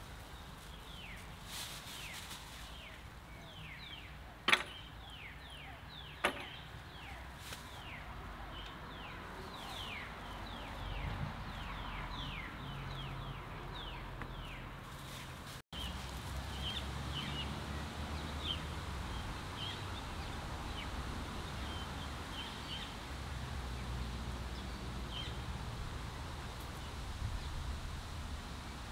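Many small birds chirping, a dense run of short calls that thins out in the second half. Two sharp clicks come about four and a half and six seconds in.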